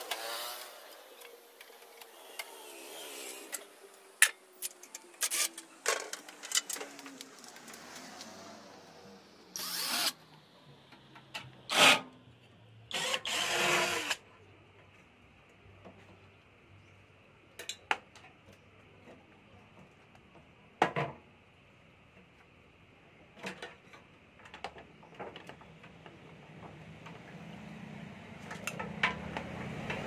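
Scattered clicks, taps and rustles of hands working the wire harness and plastic connectors inside a stripped microwave oven. A few louder noisy bursts of up to about a second come around ten to fourteen seconds in, and a low hum swells near the end.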